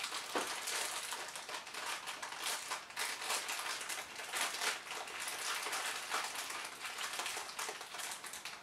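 A black foil blind bag holding a mystery mini figure, crinkling and crackling on and off as it is squeezed and worked in the hands.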